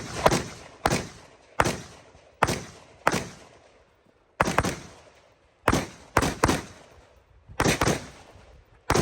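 Rifle shots fired in an irregular string, about a dozen sharp cracks, some in quick pairs, each followed by an echoing tail.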